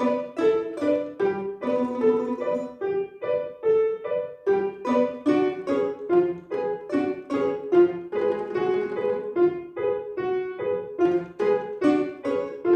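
Instrumental duet music led by piano: a continuous run of struck notes, melody over accompaniment.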